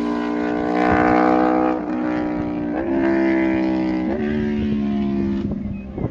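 Aprilia RSV4 RR's V4 engine through an SC-Project GP70-R exhaust, pulling hard away after a fly-by. The note breaks briefly about three times as it shifts up through the gears, then fades near the end.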